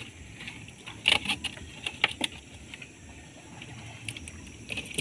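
Wet eels being lifted and dropped into a styrofoam box on a wooden boat: scattered knocks and slaps, a few close together about a second in and again around two seconds in, over a low steady rumble.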